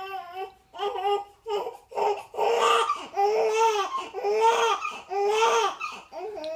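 Newborn baby crying: short whimpering cries at first, then from about two seconds in, a run of louder wails of about a second each.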